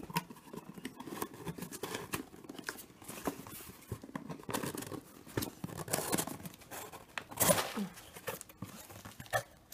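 Cardboard shipping box being torn and pulled open by hand: irregular scraping, tearing and flap-bending noises, with a rustle of crinkle-cut paper filler once the box is open. The loudest tear comes about seven and a half seconds in.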